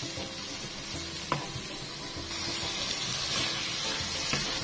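Spice paste frying in oil in a wok, sizzling steadily while a silicone spatula stirs and scrapes it, the sizzle growing brighter about halfway through; one short knock about a second in. The paste is being sautéed until fragrant.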